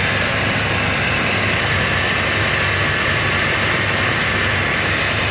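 1979 Dodge D300's 360 cubic-inch (5.9 L) V8 with a two-barrel carburettor running steadily after a cold start, heard close up from the open engine bay: a low hum under a loud, even hiss.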